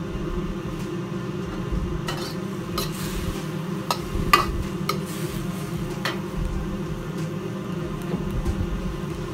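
A steel wok ladle scraping and clanking against a wok as broccoli is stir-fried, with light sizzling. There are several sharp clanks in the middle few seconds, over the steady rush of the gas burner beneath the wok.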